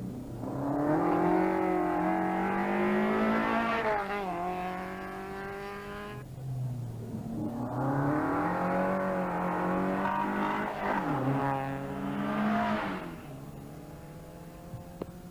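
Rally car engine at high revs, accelerating hard with rising pitch and dropping sharply at each gear change. The first run cuts off suddenly about six seconds in, a second run climbs through the gears, and the engine fades near the end.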